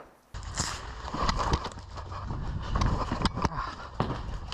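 Wind rumbling on the microphone, starting abruptly, with a run of sharp cracks from an airsoft game. The loudest cracks come about a second and a half in and again between three and four seconds in.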